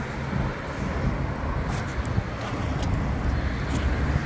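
Roadside traffic noise: cars on the adjacent road making a steady low rumble.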